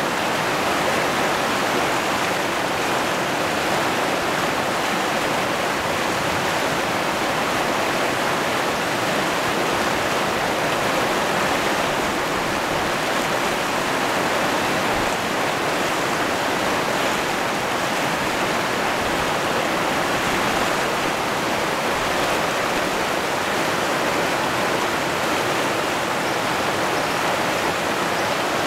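River rapids: white water running fast over rocks, a steady, unbroken rush that neither rises nor falls.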